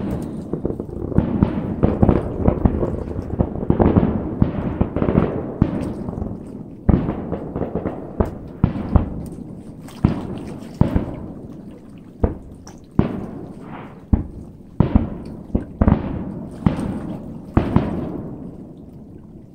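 Firework shells bursting: a rapid run of bangs at first, then separate booms about a second apart, each trailing off, spacing out and growing quieter toward the end.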